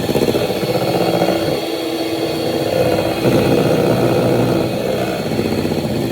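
Electric hand mixer running steadily, its beaters whipping egg whites that have not yet reached stiff peaks.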